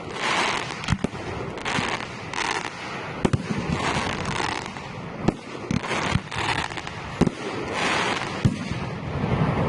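Fireworks display: sharp bangs of shells bursting about once a second, with hazy bursts of crackle and hiss between them.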